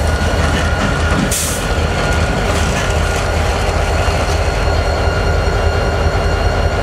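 CSX GP39-2 diesel-electric locomotive running close by: a loud, steady low diesel drone from its turbocharged EMD 645 V12 engine, with a steady high whine over it. A short hiss of air comes about a second in.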